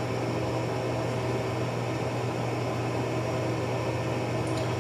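Steady low mechanical hum with an even hiss, unchanging throughout: room background noise from a running machine such as a fan or air handler.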